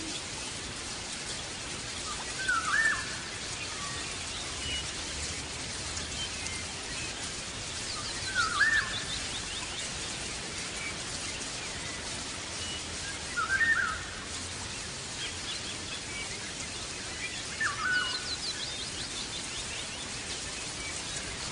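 Songbird calling: a short swooping note repeated about every five seconds, twice joined by a brief run of fast, high twittering, over a steady hiss.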